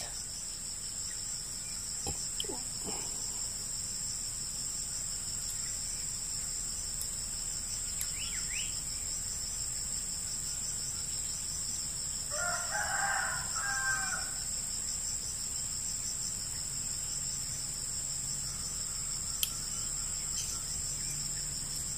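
Steady high-pitched insect drone, with one pitched bird call of about two seconds about halfway through.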